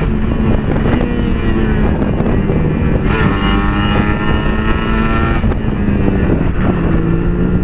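Sport motorcycle engine running steadily at road speed, with wind rushing over the helmet-mounted camera's microphone. The engine's pitch rises a little in the middle as it pulls.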